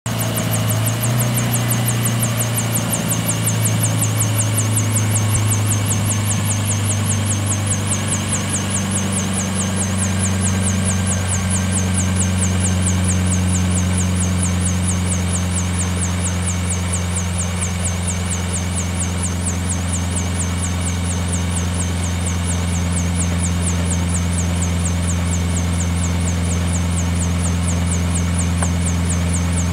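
CH-7 Charlie ultralight helicopter running on the ground with a steady, even engine drone and no change in pace.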